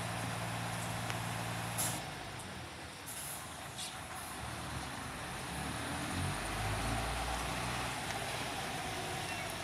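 Garbage truck's diesel engine running as the truck creeps forward, with two brief air hisses about two and four seconds in and the engine pulling harder for a couple of seconds past the middle.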